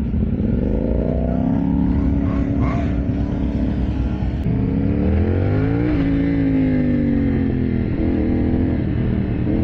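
CFMoto 450SR's parallel-twin engine accelerating hard at speed: the revs climb, hold, drop briefly at an upshift, climb again, then fall away as the throttle eases. A steady low rumble of wind lies underneath.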